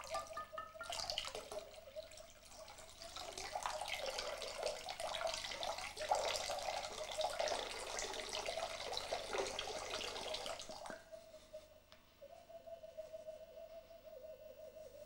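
Water poured from a glass bottle into a ceramic bowl, splashing and crackling densely until it stops suddenly about eleven seconds in. A steady held tone sounds under the splashing and carries on after it.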